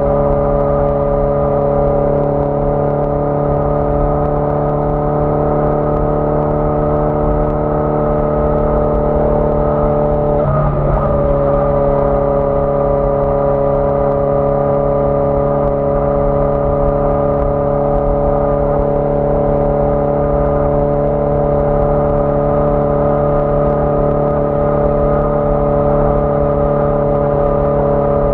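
1981 Yamaha XJ650 Maxim's air-cooled inline-four engine running steadily under way, heard from the bike. Its note breaks briefly about ten seconds in, then settles at a slightly changed pitch.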